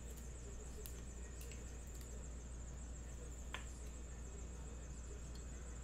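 Quiet room tone: a steady low hum and a thin, steady high-pitched whine, with a few faint clicks, the clearest about three and a half seconds in.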